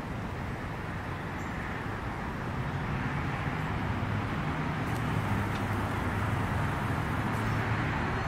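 Steady outdoor background noise, a low rumble under a hiss, growing a little louder about three seconds in.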